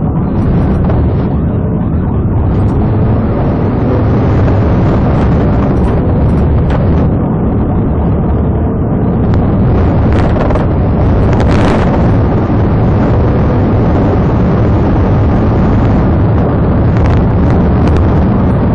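Police patrol car driving fast on a rough rural dirt road, heard from inside the cabin: a loud, steady rumble of engine, tyres and road, with a few sharp knocks and rattles, the loudest about twelve seconds in.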